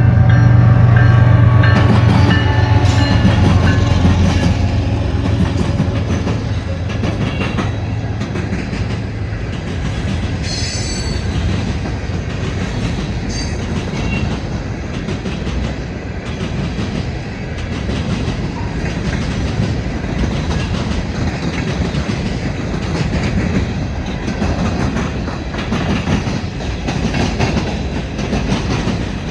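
Empty hopper cars of a freight rock train rolling past, their wheels running over the rails in a steady rumble. The drone of the GE diesel locomotives fades away over the first few seconds.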